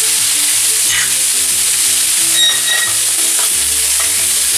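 Diced chicken breast sizzling steadily in hot olive oil in a frying pan, being stirred with a wooden spatula.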